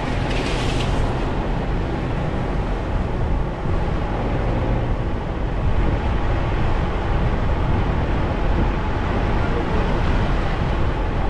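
Steady road and engine rumble of a moving vehicle, heard from inside its cabin, with a brief hiss in the first second.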